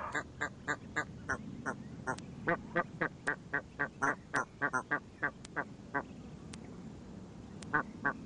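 Adult Egyptian goose calling: a rapid run of short honks, about four a second, breaking off about six seconds in, then three more near the end.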